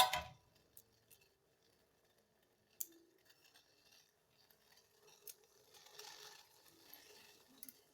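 Faint, scattered clicks and a soft rustle from fresh herbs such as lemongrass being handled and put into a tea pot.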